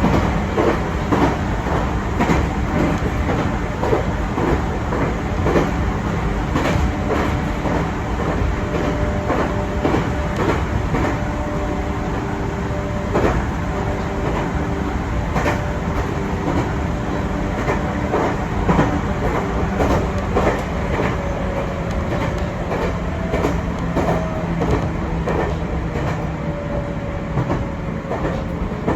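Chichibu Railway 6000-series electric train running, heard from inside the carriage: a steady rumble with wheels clacking over rail joints, and a humming tone that slowly falls in pitch over the last several seconds.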